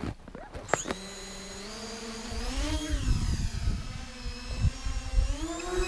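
Brushless motors and propellers of a mini tricopter whining, starting about a second in and rising and falling in pitch twice as the throttle changes, with gusty rumble from prop wash on the microphone.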